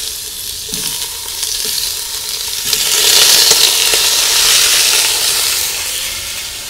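Pieces of pork neck sizzling in hot sunflower oil in a cast-iron Dutch oven as they are seared. The sizzle starts suddenly, grows louder about three seconds in, then eases slightly.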